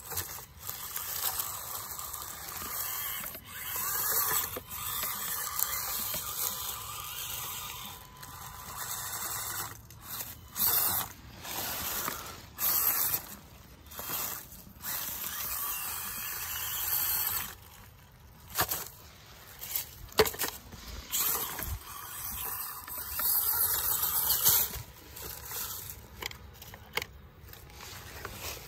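Axial SCX24 micro RC crawler's small brushed electric motor and gearbox whirring in repeated stop-start bursts as it is throttled on and off while crawling over rock.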